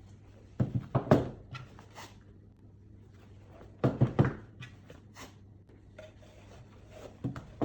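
Handling noise from a hairdryer and a fabric storage bag: three short clusters of knocks and rustles, about a second in, about four seconds in, and near the end.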